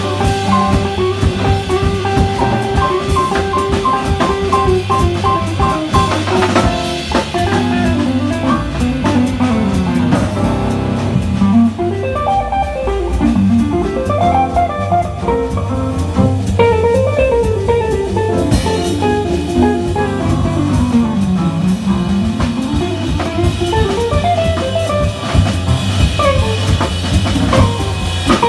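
Live jazz combo: a hollow-body electric guitar plays a solo line of quick runs that climb and fall, over drum kit and piano.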